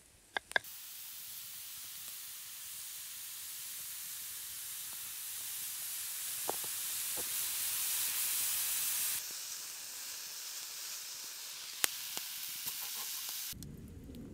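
Steak and sliced onions sizzling in a frying pan, a steady hiss that grows louder and then drops back about nine seconds in, with a few sharp pops. It opens with two quick knife taps on a wooden cutting board.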